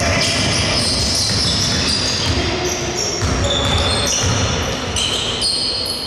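Basketball being dribbled on a hardwood gym floor, repeated bounces, with sneakers squeaking on the boards and the echo of a large hall.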